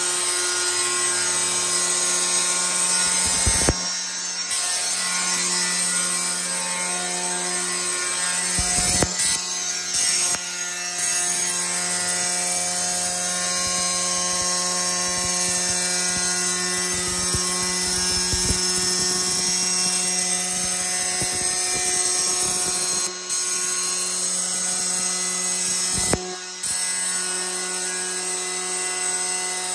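Shijing 9063 automatic tile-cutting rail saw running steadily, its motor humming in a set of held tones while the factory diamond blade cuts through a porcelain stoneware slab.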